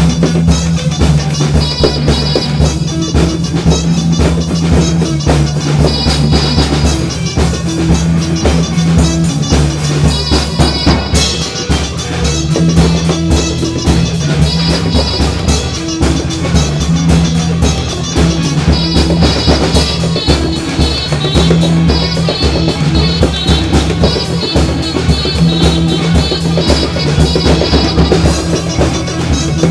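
Soundtrack music: a band with a steady drum-kit beat and a bass line.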